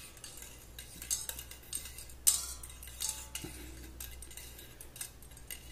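A thin metal wire clinks and ticks lightly against the rim of a stainless steel saucepan as an aluminium part hanging from it is held in the anodizing dye bath. The loudest clink comes about two seconds in and rings briefly.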